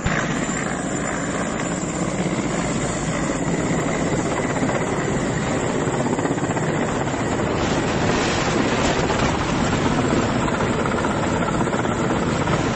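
Heavy transport helicopter running close overhead at lifting power with an SUV slung beneath it: a steady, dense rotor and engine noise.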